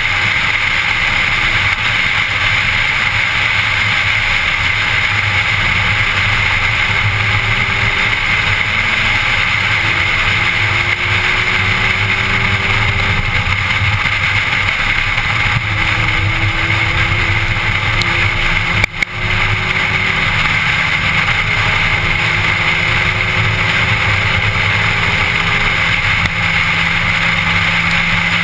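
A car driving on a winding road, heard from inside the cabin: a loud, steady rush of road and wind noise, under which the engine note rises slowly several times as the car accelerates.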